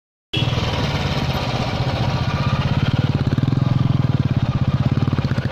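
Royal Enfield Bullet's single-cylinder engine running under way, a steady, evenly pulsing firing beat. It starts abruptly a moment in.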